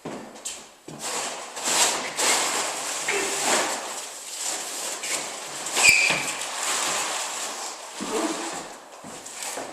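Heavy roll of vinyl flooring being wheeled on a small roller: irregular rolling and scraping noise that comes and goes in swells, with a sharp knock about six seconds in.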